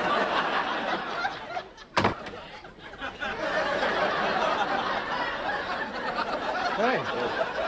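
Sitcom studio audience laughing continuously, with one sharp knock about two seconds in.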